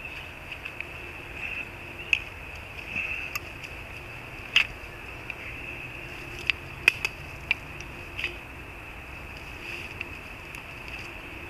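Irregular sharp clicks and knocks of a climbing stick and its strap buckle against a tree trunk as the stick is strapped on and stepped onto, the loudest about four and a half seconds in. A steady high insect trill runs underneath.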